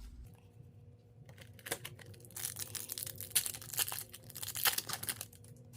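An Upper Deck hockey card pack's wrapper being torn open and crinkled by hand: a run of quick crackling rips and rustles, starting about a second in.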